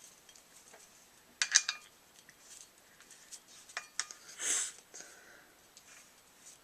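Sharp metallic clicks and light clinks from handling a paintball marker's metal parts, in two clusters, with a short breathy hiss about four and a half seconds in.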